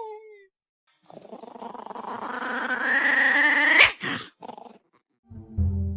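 A dog growling in a drawn-out, rising vocalisation that builds steadily louder and higher for about three seconds, then cuts off suddenly, followed by a short yelp. Background music with a deep bass comes in near the end.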